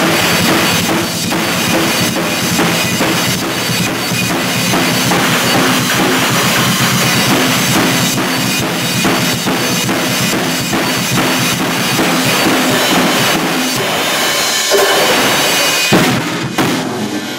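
Ddrum acoustic drum kit played fast and loud, with a dense run of bass drum, snare and cymbal hits. A final strong hit near the end leaves the kit ringing out.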